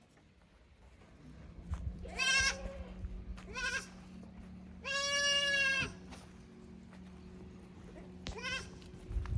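Kid goats bleating four times in high voices: a wavering bleat about two seconds in, a short one soon after, a long steady one midway, and a short one near the end. A faint steady low hum runs underneath.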